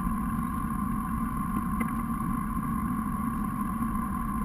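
Engine of a rigid inflatable boat idling steadily at the quay, with a couple of faint knocks.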